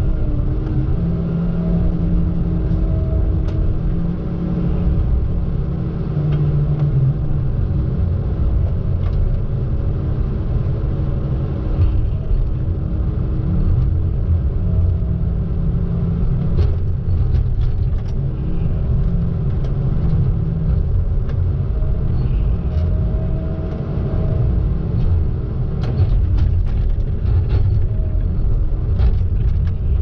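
Diesel engine of a Tigercat knuckleboom log loader running steadily under working load, heard from the operator's cab, with a hydraulic whine that comes and goes as the boom and grapple move. Scattered knocks and clatter of pine logs being set onto a log truck's trailer, mostly in the second half.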